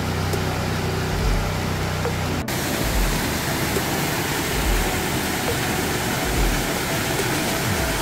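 Waterfall noise with a steady low hum of construction machinery running nearby; about two and a half seconds in the sound cuts to the even, unbroken rush of a waterfall falling into its pool.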